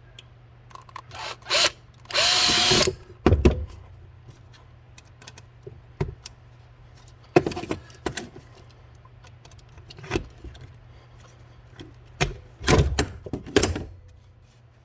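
A power drill runs briefly about two seconds in, boring a rivet hole in a leaf blower nozzle. Sharp clicks and knocks of tools being handled come before and after it, with a cluster near the end.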